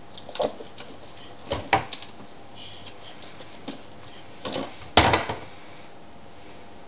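A wooden cupboard door knocking and rattling against its frame as a ferret pushes and squeezes past it. There are several separate knocks, a few close together about one and a half to two seconds in and the loudest about five seconds in.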